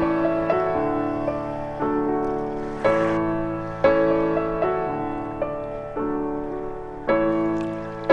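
Slow, gentle piano music, with chords struck about once a second and left to ring and fade.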